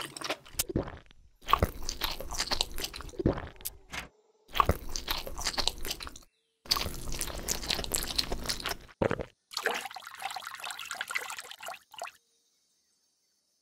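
Crunching sound effects in four bursts of about two seconds each, with short breaks between, stopping suddenly about twelve seconds in.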